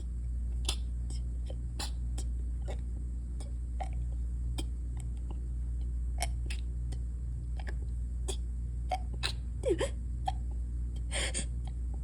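Small body sounds of a congested woman holding back a sneeze: scattered faint clicks, a brief falling whimper near ten seconds and a short rush of breath about a second later, over a steady low hum.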